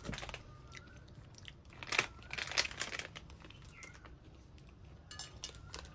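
Plastic chocolate wrappers crinkling and rustling as a hand picks a packet out of a pile, in short crackly bursts, loudest about two to three seconds in.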